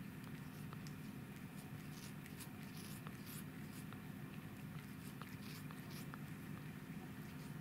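A cat sniffing closely through a dog's fur: faint soft snuffling and fur rustling close to the microphone, with small scattered clicks, over a steady low hum.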